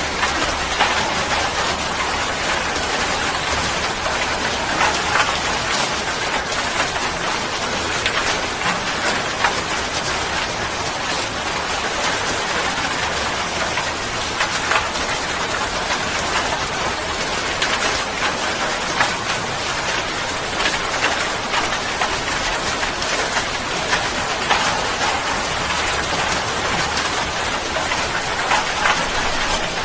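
Steady rain falling, a dense even hiss with many small drop ticks.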